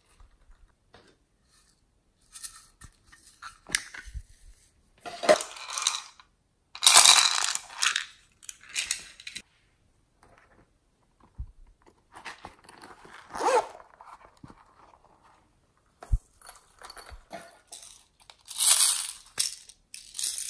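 Sprinkles, foam beads and pearl beads poured and dropped onto glossy slime in a glass dish: a string of short bursts of small pieces landing, with quiet gaps between. The loudest bursts come about a third of the way in and again near the end.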